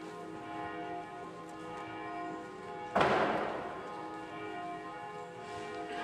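Church bells ringing, their tones overlapping and sustained, with one sudden louder bell stroke about halfway through that rings out and fades.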